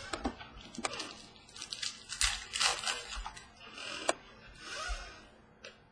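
Basketball trading cards being handled on a wooden table: a run of short clicks and taps as cards are set down, with a few brief swishing slides as cards are pulled and sorted from a pack.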